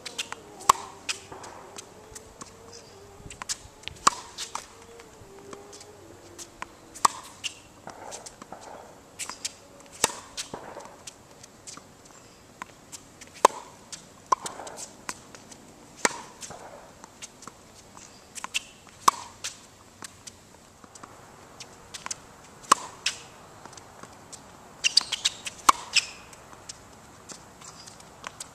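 A tennis ball struck by a racket in a groundstroke rally on a hard court: a sharp pock about every three seconds, with fainter pops between, and a quick cluster of them near the end.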